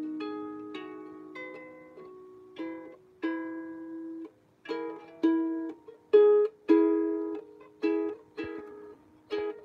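Out-of-tune harp plucked slowly, single notes ringing and fading one after another. From about halfway the notes come quicker and louder.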